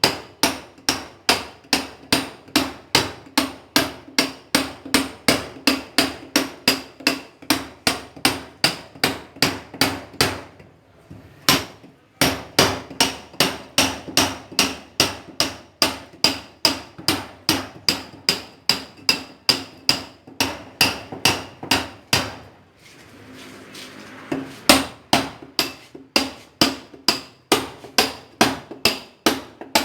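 Club hammer striking a steel chisel, about three blows a second, each with a short metallic ring. The blows stop briefly twice, about ten and twenty-two seconds in.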